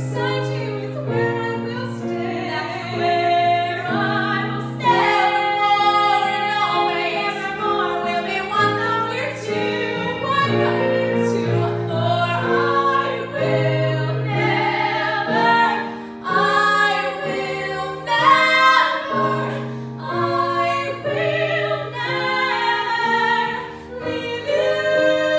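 Two teenage girls singing a musical-theatre duet together over piano accompaniment.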